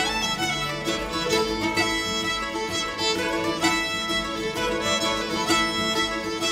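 Instrumental folk music led by a fiddle, playing steadily under the end credits.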